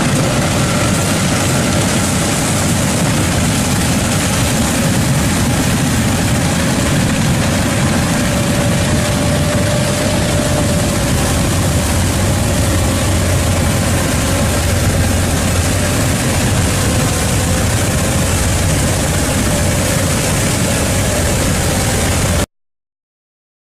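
A heavy machine's engine running steadily, cutting off suddenly near the end.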